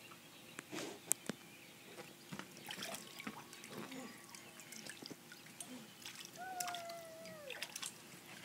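Water trickling and dripping in a shallow inflatable kiddie pool as a toddler moves about in it, with scattered light clicks. A single falling call, just over a second long, comes about six and a half seconds in.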